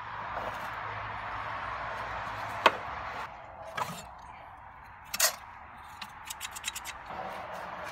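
Metal clicks and clinks from old hand tools being picked up and handled: a few single sharp clicks, then a quick run of clicks near the end as a hand tool's handles are worked open and shut. Under them a steady hiss that drops off about three seconds in.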